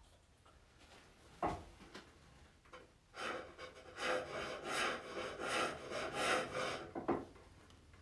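Pole lathe cutting: a hand-held turning tool shaving wood on the spinning box blank, a rhythmic series of scraping cuts that starts about three seconds in and stops near the end. A single knock about a second and a half in, and another just before the cutting stops.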